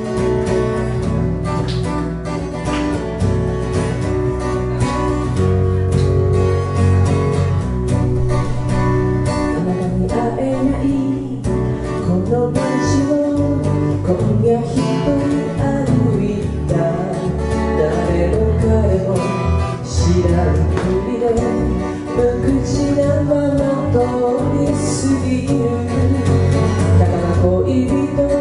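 Live band music: acoustic guitar and electric bass playing a song in a 16-beat groove, with a woman singing at times.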